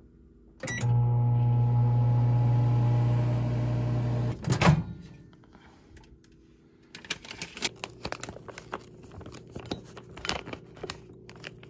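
Microwave oven started with a click and humming steadily for about three and a half seconds, then stopping, with a sharp clunk just after, as of its door. Then scattered light clicks and knocks of handling, reheating food that had gone cold.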